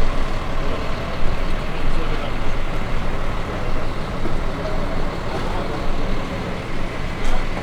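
Steady rumble of heavy diesel engines and busy street traffic.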